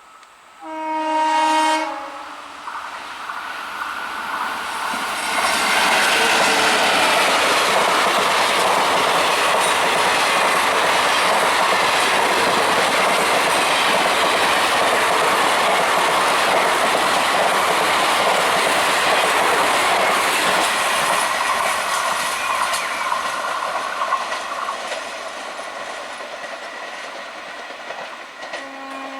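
A locomotive horn sounds one blast about a second long. The train then approaches and passes at high speed as a loud, steady rush of wheels on rails lasting about fifteen seconds, which fades away over the last few seconds. A second horn blast begins at the very end.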